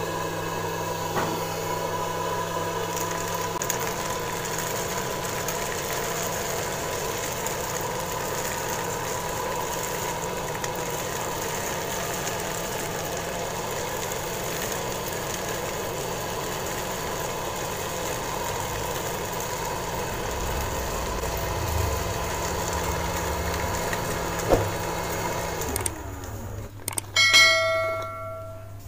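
Small DC motor running steadily with a constant whine, then stopping; a short bell-like ring follows near the end.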